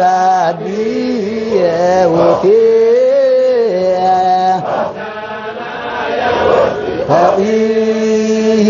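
Men's voices chanting a Sufi Qadiriya dhikr in unison: long held notes that step up and down in pitch, broken by a few breathy stretches between phrases.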